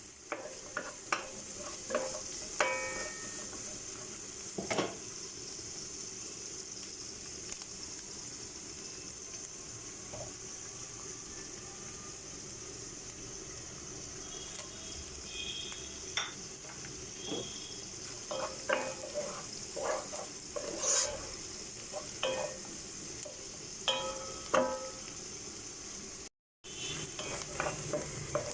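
Food frying in oil in a cooking pot with a steady sizzle, while a metal spoon stirs it, scraping and clinking against the pot every so often. The sound drops out briefly near the end.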